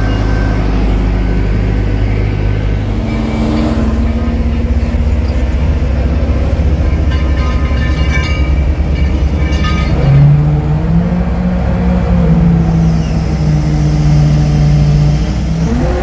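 Kato mobile crane's diesel engine running steadily. About ten seconds in its pitch rises and holds higher for several seconds as it is throttled up to drive the hoist while a load hangs from the hook.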